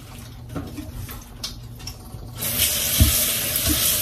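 Kitchen tap turned on about two and a half seconds in, water running steadily into the sink, with a low thump a little later.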